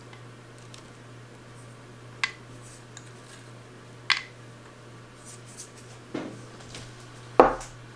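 About four sharp clinks of kitchenware, roughly two seconds apart, the last and loudest near the end, while chopped pecans are sprinkled by hand over candied sweet potatoes in a metal baking pan.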